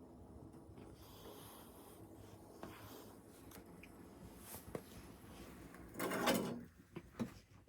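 Objects being handled: a few light knocks, then a louder short scrape or slide about six seconds in.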